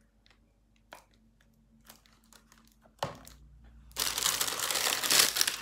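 A few faint clicks, then about four seconds in, loud crinkling of a thin plastic bag as hands rummage in it among small milk cartons.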